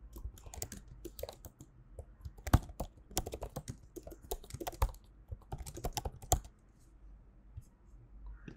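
Typing on a computer keyboard: quick, irregular keystrokes that stop about six and a half seconds in.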